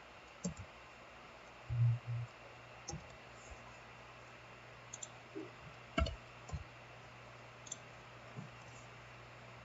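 Sparse clicking at a computer, about seven separate sharp clicks spread out, over a faint steady low hum. There is a short low bump about two seconds in.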